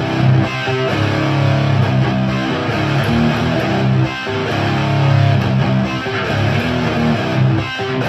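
Electric guitar with Bare Knuckle Mississippi Queen P90 pickups, played through a Diezel Hagen tube amp with KT77 power tubes into a Marshall cabinet loaded with Celestion G12-K100 speakers. It is strummed and picked in chords and riffs, in phrases with short breaks.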